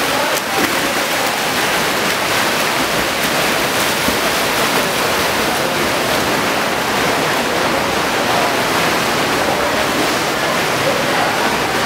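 Steady wash of splashing from swimmers doing lengths in an indoor pool, with no single stroke standing out.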